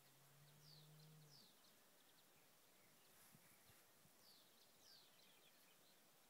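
Near silence with faint bird chirps, short high falling notes heard a few times.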